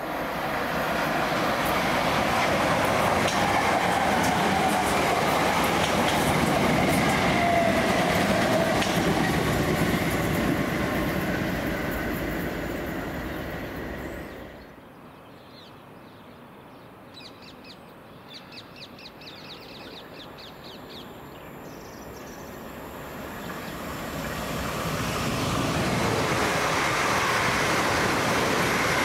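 A train passing through the station at speed, loud for the first twelve seconds or so and then fading away. After a quieter stretch with a quick run of high chirps, a South Western Railway Class 450 Desiro electric multiple unit approaches and rushes past close by at speed near the end.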